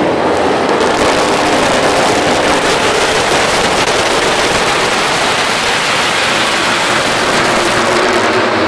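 A full grid of MotoGP four-cylinder racing bikes revving and accelerating off the start line together, a loud, dense wall of engine noise.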